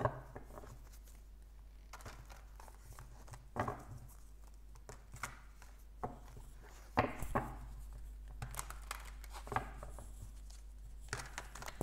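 A deck of tarot cards being shuffled by hand, overhand: cards slide and slap against each other in irregular bursts of rustling, with a few sharper clacks.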